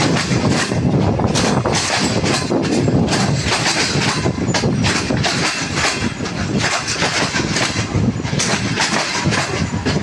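Freight train of covered hopper wagons rolling past on the next track, steel wheels clattering and clicking over the rail joints in a continuous, loud rumble.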